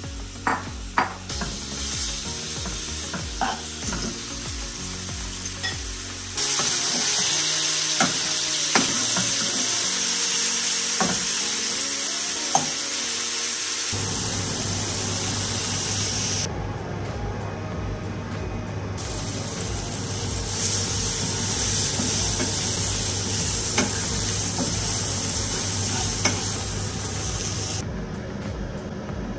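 Marinated chicken strips frying in oil in a nonstick pan: a steady sizzle that grows louder about six seconds in, with occasional sharp clicks of stirring against the pan.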